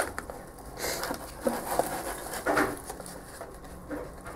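Scattered light knocks and rustles of potted plants being handled and shifted, plastic pots and gravel moving, in a few irregular bursts.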